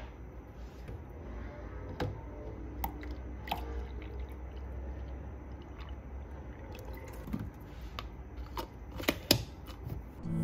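Milk pouring from a plastic jug into a plastic cup of dark drink, with a few light clicks and taps around it.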